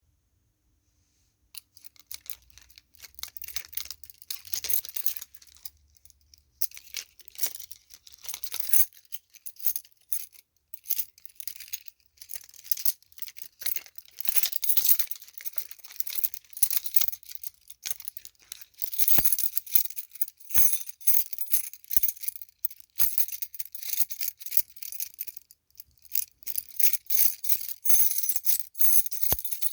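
A bunch of metal keys on a key ring being shaken and jangled in irregular bursts of bright clinking, with short pauses between bursts and a few sharper single clinks.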